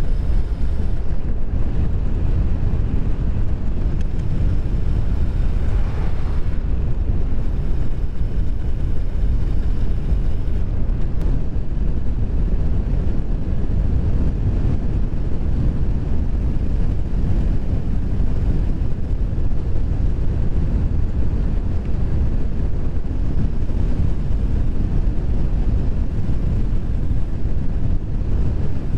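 Strong wind buffeting a GoPro's microphone on a fast bicycle descent: loud, steady wind noise, heaviest in the low end.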